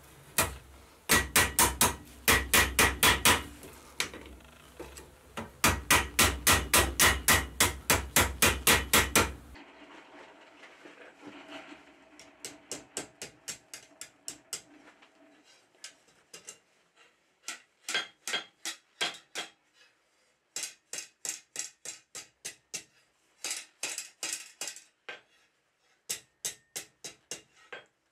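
Blacksmith's hand hammer striking a steel bar on an anvil, in loud regular blows at about three a second. After about nine and a half seconds the blows turn to quieter, quicker light taps in short runs.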